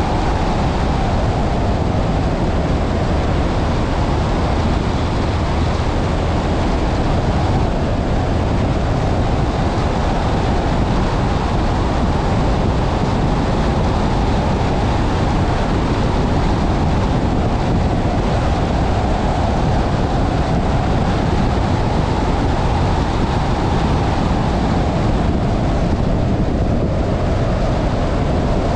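A car driving on a gravel road, heard from on board: a steady rumble of tyres on gravel and road noise, with the engine note rising and falling gently.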